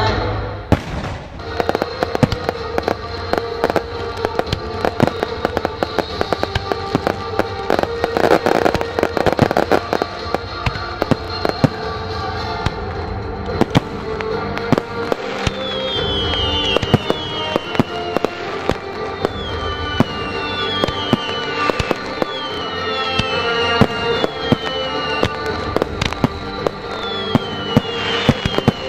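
Fireworks display: aerial shells bursting in quick succession with bangs and crackling, over a music soundtrack. From about halfway through, a run of short falling whistles repeats every second or so.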